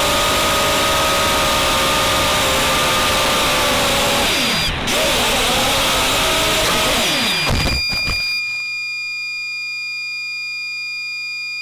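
250-size racing quadcopter's brushless motors and propellers whining steadily with wind rush, then dipping and rising in pitch as the throttle changes during an attempted roll. About eight seconds in the motors stop abruptly as the quad hits the ground, leaving a steady thin electronic tone.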